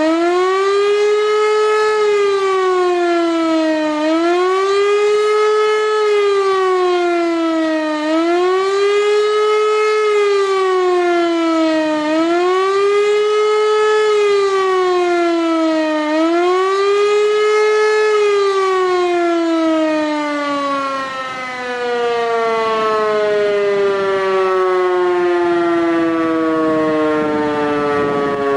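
E-57 electric motor siren sounding the warning signal: a rising and falling howl, one swell about every four seconds. About two-thirds of the way through it stops swelling and its pitch slides steadily down as the rotor runs down at the end of the signal.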